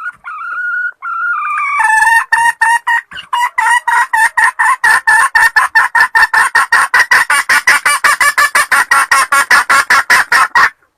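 Red junglefowl hen cackling: a few drawn-out notes, then a long rapid run of short, repeated calls, about five a second, that stops suddenly near the end.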